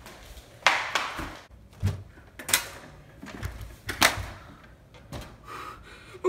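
A handful of sharp knocks at irregular intervals about a second apart, the loudest two coming just under a second in and about four seconds in.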